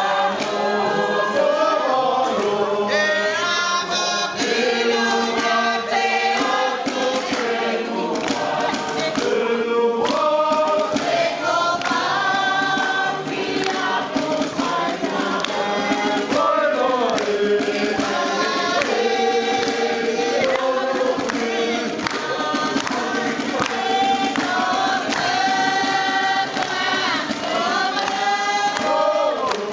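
A group of men and women singing together in chorus, one continuous song.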